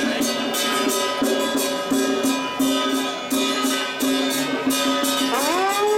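Traditional ritual music: a steady beat of percussion, about three strikes a second, over sustained held tones. About five seconds in, a pitched sound slides upward.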